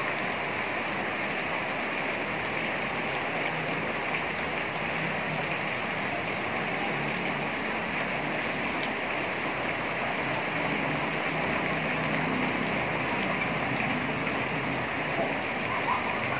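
Heavy rain falling steadily onto clay tile roofs and a wet paved courtyard, an even hiss with no letup.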